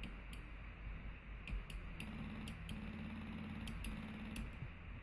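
About ten light, sharp clicks at irregular intervals, with a faint hum that starts about two seconds in and breaks off twice.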